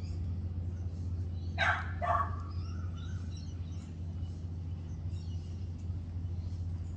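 A dog barking twice in quick succession about a second and a half in, over a steady low hum.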